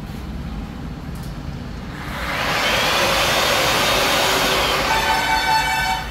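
Electric drywall sanders with dust extraction running: a steady vacuum-like whoosh that swells in about two seconds in and holds for a few seconds. Near the end a steady multi-pitched tone comes in over it.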